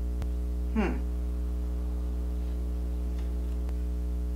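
Steady electrical mains hum, with a sharp click just after the start and a brief murmur from a voice about a second in.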